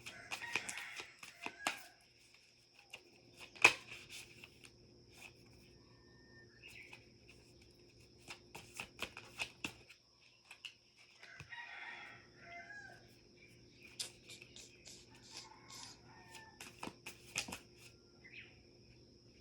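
Pet myna making irregular runs of sharp clicks, broken by a couple of short raspy chatters and a few soft whistled notes.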